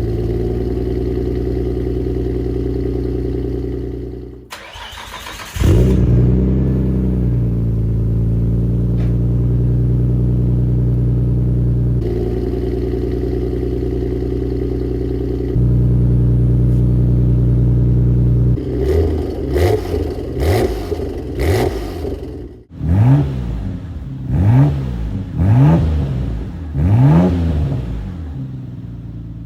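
Nissan Skyline R33 GT-R's RB26 twin-turbo inline-six running through a Tomei titanium exhaust, with the stock catalytic converter still fitted. It idles steadily at first, then from about two-thirds of the way in is revved repeatedly in sharp blips that rise and fall about once a second.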